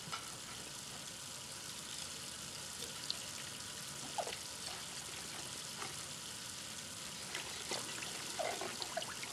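Water running from a kitchen tap into a stainless steel sink as dishes are washed by hand, a steady hiss with a few small clinks and squeaks of wet dishes.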